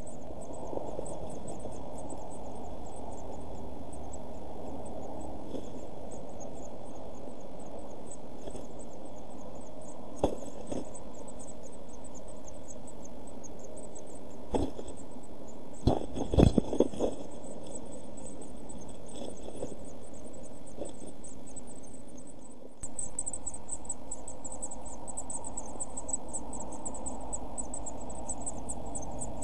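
Inside a blue tit nest box: a steady hiss with a thin, fast, high-pitched ticking throughout. Through the middle come a few knocks and scrabbles on the wood as an adult blue tit comes in to the week-old chicks, the loudest a quick cluster about halfway through.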